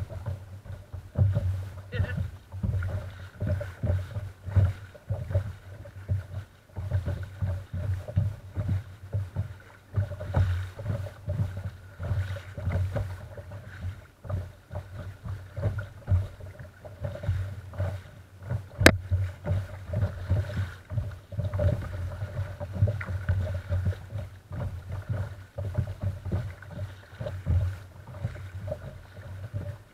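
Water slapping and lapping against the hull of a sea kayak under way: a run of irregular low knocks and splashes, with one sharp click about two-thirds of the way through.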